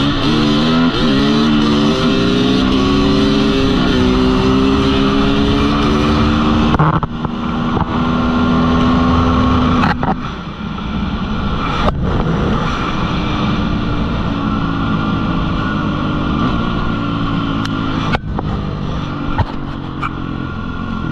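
Dirt bike engine heard on board, wide open and accelerating hard, its note climbing and dropping through several quick upshifts. About seven seconds in the throttle eases, and it runs on at a steadier pitch with wind noise.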